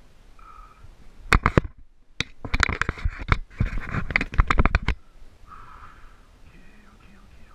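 Close scraping and knocking of fishing gear being handled aboard a kayak. A quick clatter comes about a second in, then a denser run of irregular rattling knocks until about five seconds in.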